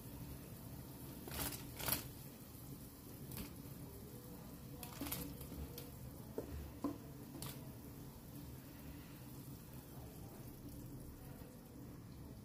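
Cut okra tipped from a plate into boiling curry gravy in a pan: a few short soft knocks and plops as the pieces and the plate edge drop in, over a faint steady low hum.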